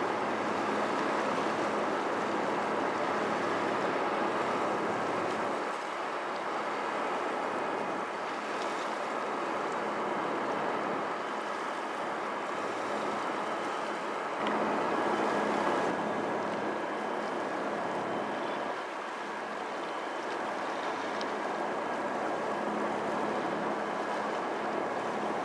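Water washing with a steady rushing noise that swells and eases every few seconds, and a faint low hum underneath.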